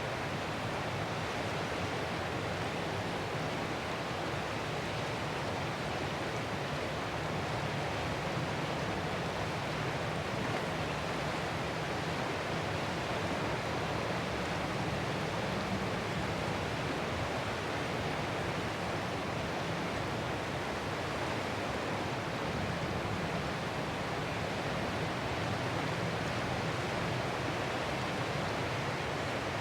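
Ocean surf heard as a steady, even wash of noise, with no separate waves rising and breaking.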